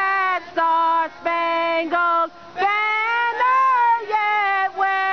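A single clear voice singing a slow melody in separate held notes with short breaks between them. One note in the middle bends in pitch, and another note near the end is held long.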